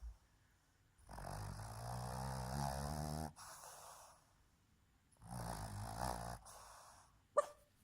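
Boston terrier snoring in her sleep: two long snores about four seconds apart, the first lasting about two seconds and the second shorter, each trailing off into breath. A single sharp click sounds near the end.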